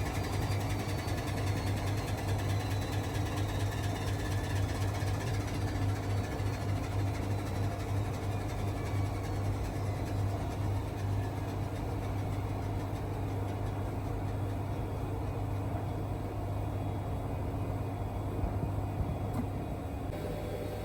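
Indesit WIL143 washing machine on its final spin, running steadily with a strong motor hum and drum rumble. A faint whine falls slowly in pitch, and the higher sounds die away over the second half.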